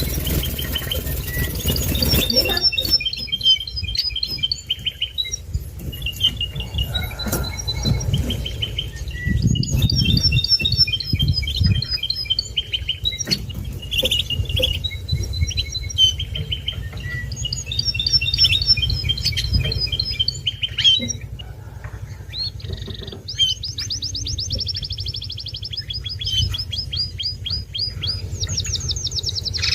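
Gloster canary singing its courtship song to a female: phrases of quick repeated high notes and warbles, breaking into fast rolling trills near the end, over a low steady hum.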